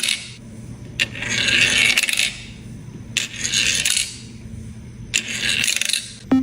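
A sharp click followed by about a second of hissing, rattling scrape, repeated four times roughly every two seconds, over a steady low hum.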